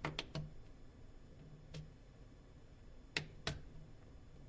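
A few short, sharp plastic clicks from a prying tool releasing the snap catches of a Nokia Lumia 510's cover. The two loudest come about three seconds in, a third of a second apart, with fainter ticks before them.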